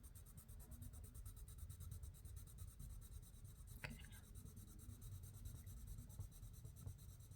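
Faint scratching of an Albrecht Dürer watercolour pencil on paper, laying down a colour swatch, with a single light tap about four seconds in.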